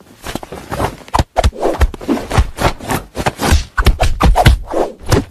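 Close rubbing, scuffing and soft knocks in quick irregular succession, about three or four a second: a cat batting and pawing at a hand held close to the microphone.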